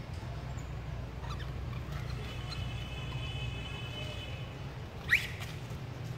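Macaque giving a single short, sharp squeak that rises in pitch about five seconds in, over a steady low rumble; a faint thin high tone is held for a couple of seconds before it.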